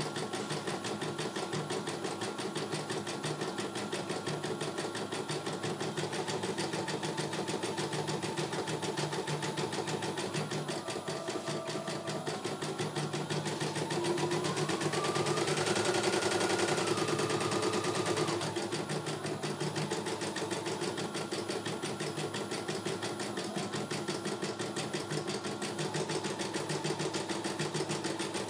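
CNY E900 computerized embroidery machine stitching a design: a rapid, even run of needle strokes over a mechanical hum and whine. About halfway through the whine rises in pitch and the machine gets louder for a few seconds, then settles back.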